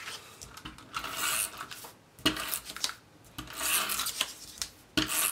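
Cardstock pieces being handled and rubbed against each other and the work surface: two rasping rubs about a second long each, with a sharp tap between them and another near the end.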